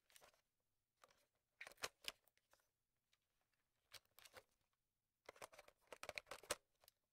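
Computer mouse clicking over near silence: a few sparse faint clicks, then a quick run of clicks in the last two seconds.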